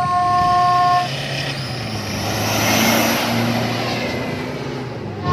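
An off-road rally pickup drives past on a sand track, its engine and the rush of tyres and dust building to a peak about three seconds in and then fading. A steady horn tone sounds for the first second.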